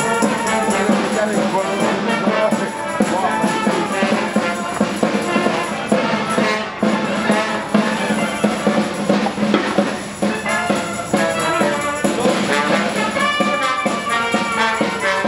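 Small marching street band playing, trumpets carrying the tune over a bass drum that keeps a steady beat.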